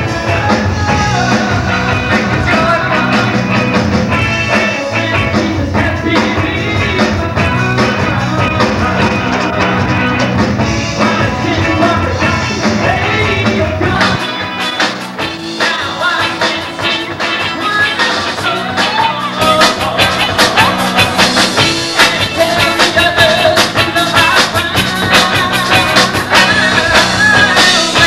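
Live rock band playing electric guitars, bass guitar and drums. About fourteen seconds in, the bass and drums drop out for several seconds, then the full band comes back in louder.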